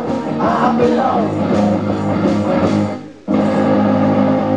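A rock band playing live: electric guitars with a sung vocal line near the start. The sound cuts out for a moment about three seconds in, then a held chord rings on.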